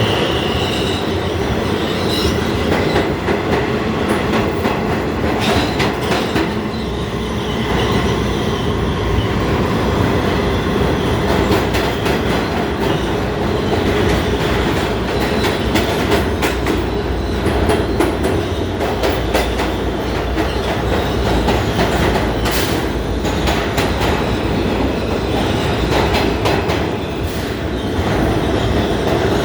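New York City subway train running on the track: a steady rumble and hum with wheels clicking over the rails. A high wheel squeal stops about a second in.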